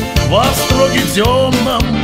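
Music with a steady beat and a melody line that glides up and down.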